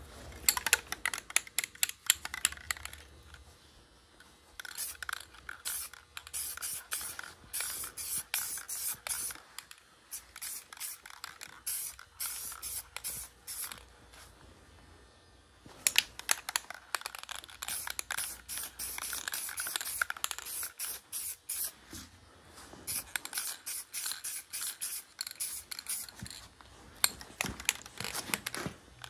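Aerosol spray can of leather dye sprayed in many short hissing bursts, quieter for a couple of seconds near the middle.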